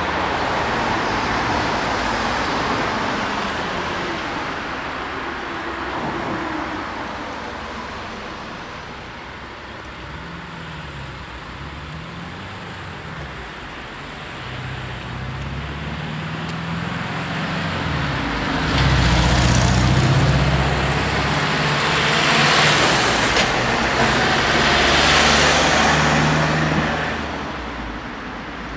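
Road traffic at a junction: cars and vans driving past, with engines running close by from about halfway through. It is loudest in the last third and drops away near the end.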